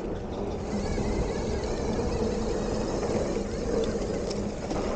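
Mountain bike on Maxxis Assegai knobby tyres rolling along a dirt trail: a steady rumble of tyre and trail noise, picking up a little about a second in.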